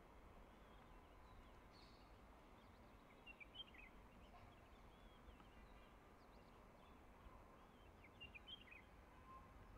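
Faint outdoor ambience: small birds chirp briefly a few times over a low, steady rumble.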